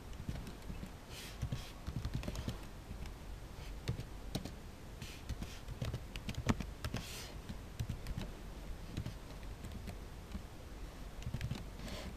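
Computer keyboard typing: irregular runs of keystroke clicks with short pauses between them.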